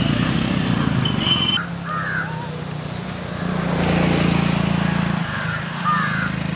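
Motor vehicle engine running steadily, swelling and easing off in the middle, with two short chirping calls about two seconds in and near the end.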